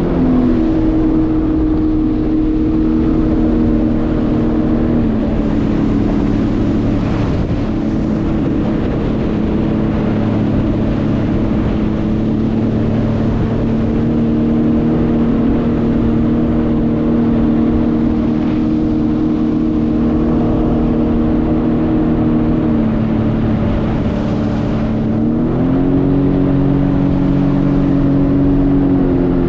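Jet ski engine running at a steady cruise. Its pitch steps down twice in the first few seconds, holds for a long stretch, dips and then climbs back up near the end with the throttle.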